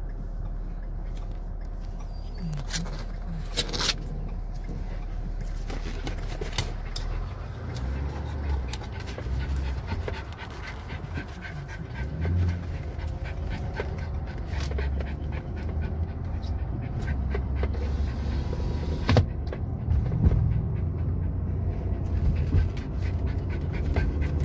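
A dog panting in a moving car, over the steady low rumble of road and engine noise in the cabin.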